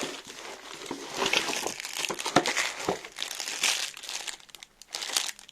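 Packaging crinkling and rustling, with sharp clicks, as a pastry piping gun is unwrapped and handled; it quietens about a second before the end.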